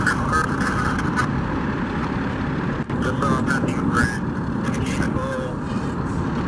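Steady engine rumble of heavy equipment and trucks running, with indistinct voices talking now and then.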